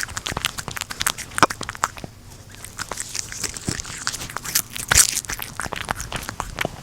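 A cat eating dried bonito flakes close up: quick, irregular chewing and lip-smacking clicks, with one louder click about five seconds in.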